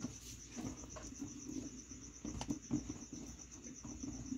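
Insect, most likely a cricket, chirping steadily in a fast, even pulse, with a few faint clicks and rustles from a hand handling a wiring connector and steel lines at the power-steering hose fitting.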